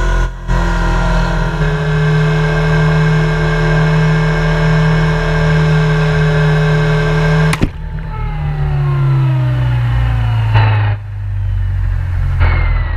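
Helicopter running with a steady mechanical drone; about three-quarters of the way in its pitch starts to fall steadily, as if winding down.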